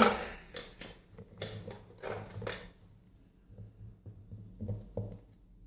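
Light clicks and short scrapes from handling a rim cylinder lock and small tools while preparing to take the cylinder apart. They are busiest in the first three seconds, with a few more near the end.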